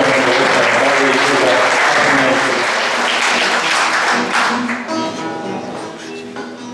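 Audience applauding, dying away about five seconds in, while a classical guitar plays a song's introduction underneath and then on its own.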